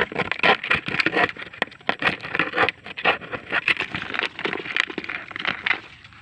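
Crabs scrabbling and clattering in a plastic bucket: a rapid, irregular run of scrapes and clicks, fading a little near the end.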